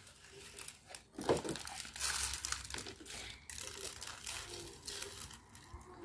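Paper bag of bird seed crinkling and rustling as handfuls of seed are scooped out by hand, with small irregular clicks and rattles.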